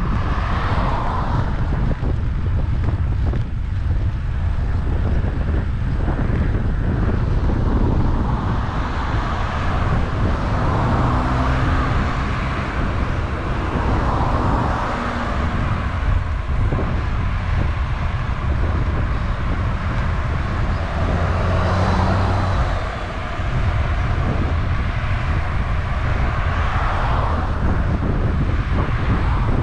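Steady wind noise buffeting the microphone of a camera on a moving road bike, over a low road rumble. Cars pass in the oncoming lane several times, each swelling and fading.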